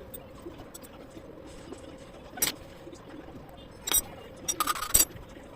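Metal parts and tools clinking as they are handled: a single clink about two and a half seconds in, another near four seconds, then a quick rattle of clinks around five seconds, over a faint steady hum.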